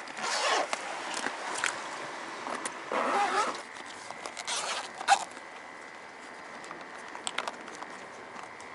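Hands rummaging through a tackle bag and unzipping a small zippered float case, a run of short rustles, scrapes and clicks, some of them sharp.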